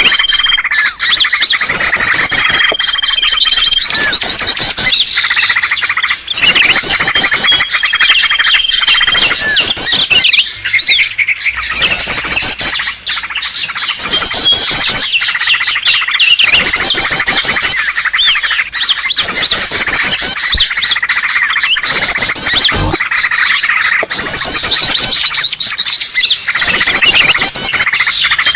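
Agitated chorus of greater green leafbirds (cucak ijo) and other songbirds chirping and trilling over one another without pause, with a few held whistles in the first half. It is a bird-lure recording meant to draw in cucak ijo.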